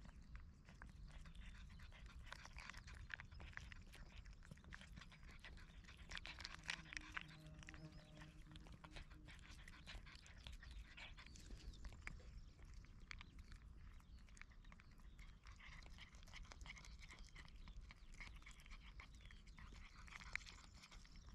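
Domestic cat licking and chewing a treat stick held in a hand: faint, rapid, irregular wet clicks and smacks.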